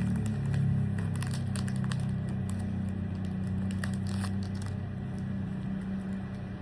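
Foil booster-pack wrapper crinkling and tearing as a Pokémon card pack is opened, with scattered short crackles over a steady low hum.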